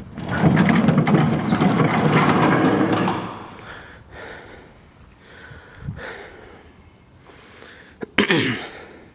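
Barn doors being worked open: a loud scraping rumble for about three seconds, then scattered knocks, and near the end a sharp click with a short falling creak.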